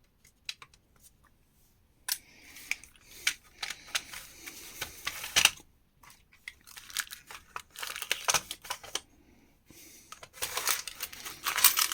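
Rummaging through loose screws and small hardware: clicks, rattles and rustling handling noise, in three bursts with quiet pauses between.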